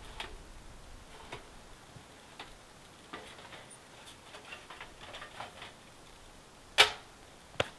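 Light irregular metal clicks and taps from the parts of a small camping wood stove being handled and taken apart, with one much louder sharp clack about seven seconds in and another just before the end.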